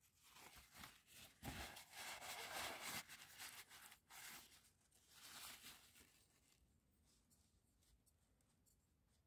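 Paper towel and cloth rustling and crinkling as the plastic oil filter housing cap is handled and wiped, in uneven scrunches for about six seconds, then fading to a faint hush.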